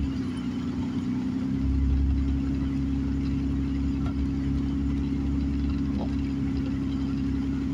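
Car engine and tyre noise heard from inside the cabin while driving on a wet road: a steady hum with a low rumble.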